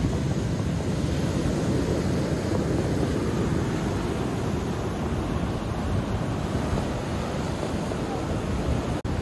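Ocean surf washing over a rocky shore, a steady low rumble with wind buffeting the microphone. The sound cuts out for an instant near the end.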